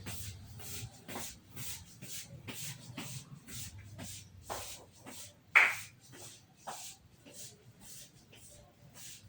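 Kitchen clatter: a string of short knocks, scrapes and rustles, about two a second, with one sharp, louder clack a little past halfway.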